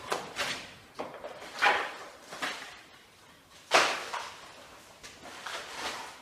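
A series of sharp knocks and clatters, about eight in six seconds at an irregular pace, each cut short within a fraction of a second, the loudest a little before the fourth second.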